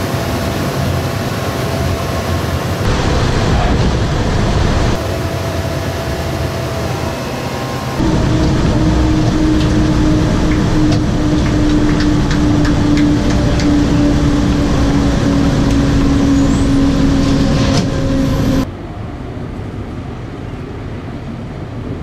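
Boeing B-29 Superfortress's four Wright R-3350 radial engines and propellers running at low power as the bomber rolls out on the runway after landing. The sound is heard alternately from outside the aircraft and from inside the cabin. Inside the cabin it is a loud steady drone with a tone that sinks slightly over about ten seconds, and the sound turns quieter and more distant near the end.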